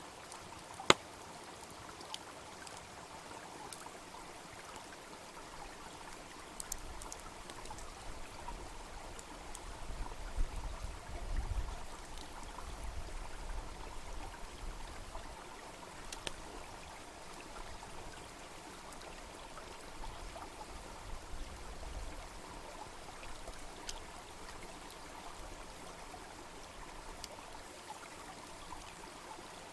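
A small brook babbling steadily, with the sharp pops and crackles of a wood fire burning nearby. A loud pop comes about a second in, and a low rumble rises and falls through the middle stretch.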